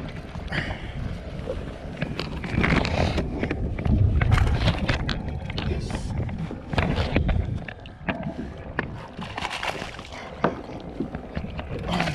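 Wind buffeting the microphone on a kayak at sea, with a heavy rumble through the middle, and many short knocks and clicks of handling as a fish is reeled in on a spinning reel and a landing net goes into the water near the end.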